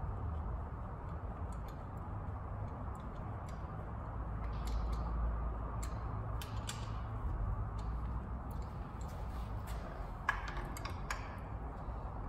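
Hand ratchet clicking in short, irregular runs as bolts on an engine's fuel rail are tightened, over a low steady hum.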